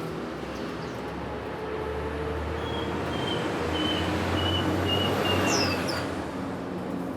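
A vehicle passing by: a rumble that swells to its loudest about five seconds in and then fades, with a few short bird chirps near its peak.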